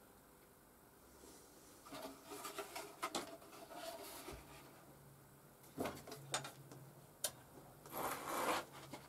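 Plastic pipe fittings and tools being handled on a workbench: scattered rubbing and scraping, a few sharp clicks, and a louder rustle near the end. A faint low hum comes in about halfway through.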